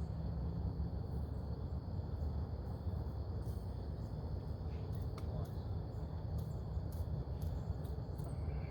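Steady chorus of insects droning at a constant pitch, over a low steady rumble with a few faint scattered clicks.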